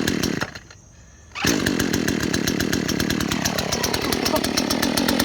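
Gas chainsaw engine firing briefly and dying, then catching about a second and a half in and running steadily with a rapid, even firing beat.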